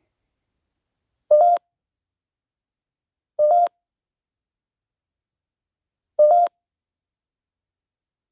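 Three short electronic bleeps from a ghost-hunting phone app, each about a third of a second long and a couple of seconds apart, each starting with a click, with dead silence between.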